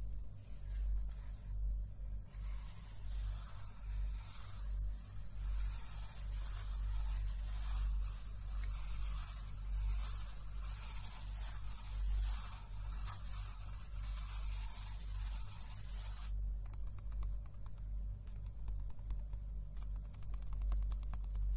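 Hands rubbing and brushing over the paper pages of a notebook close to the microphone, a scratchy hiss of quick strokes. About three-quarters of the way through it drops to fainter, finer scratching.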